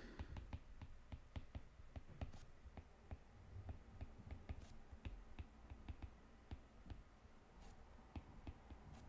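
Faint, irregular tapping and clicking of a stylus writing on a tablet screen, several taps a second.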